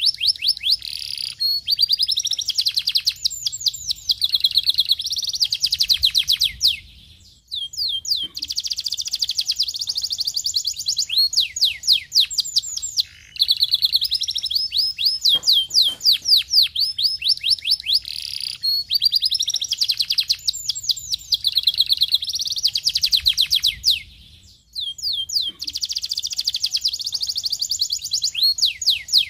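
Domestic canary singing: long phrases of fast trills made of rapidly repeated down-sweeping notes, shifting from one trill type to the next, with brief pauses between phrases.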